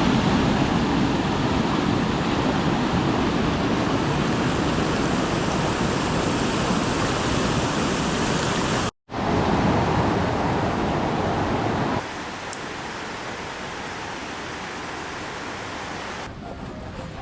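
Steady rush of falling river water, a continuous even roar without pitch; it breaks off for an instant about nine seconds in and carries on quieter from about twelve seconds in.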